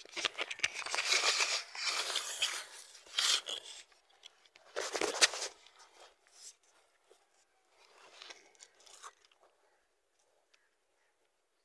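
Footsteps crunching on dry leaves and twigs, with vegetation rustling against the walker, in irregular bursts over the first five seconds, then thinning to a few faint crackles and fading out.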